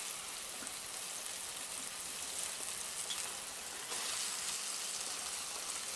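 Flour-dredged pork steak sizzling in hot oil in a frying pan, a steady hiss that grows a little louder about two-thirds of the way through.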